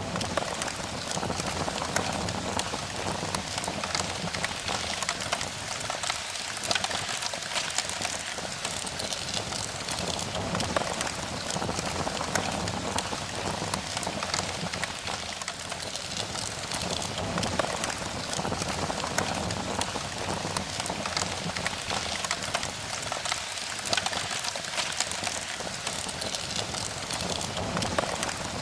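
Steady rain, a dense patter of many drops.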